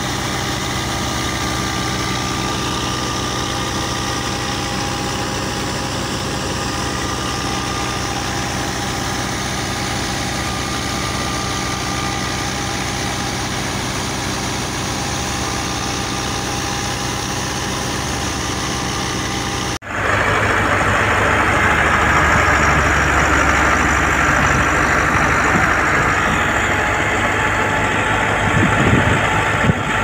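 A New Holland Dabung 85 tractor's diesel engine running steadily while it drives a thresher through the PTO. About twenty seconds in, the sound cuts to a louder, noisier tractor-and-thresher din from a Massey Ferguson 385 driving another thresher.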